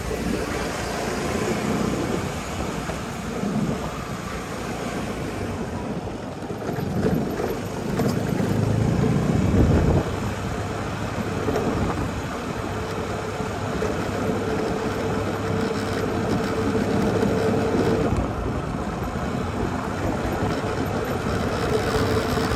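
A small motor vehicle running steadily along a road, with tyre and wind noise, and a louder low rumble about eight to ten seconds in.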